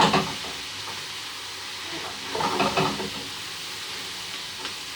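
Vegetables sizzling steadily in hot oil in a frying pan during a stir fry, with two brief louder sounds, one at the very start and one about two and a half seconds in.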